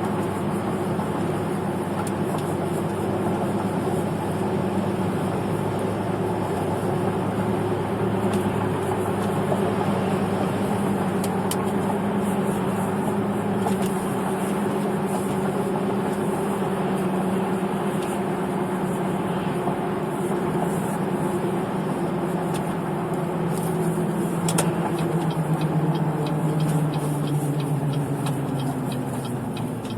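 A car driving on worn, damaged tyres, with a steady droning hum over the road noise. The hum drops in pitch over the last few seconds as the car slows.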